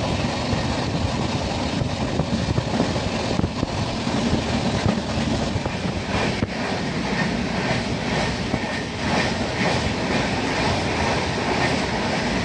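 Express passenger train running at speed, heard from a window seat inside the coach: a steady rumble and rush of wheels on rail, with occasional clicks from rail joints.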